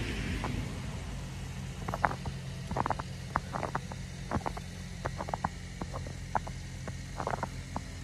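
Footsteps crunching in fresh snow, short irregular crunches about once or twice a second, over a steady low hum. Just at the start the tail of a passing car fades away.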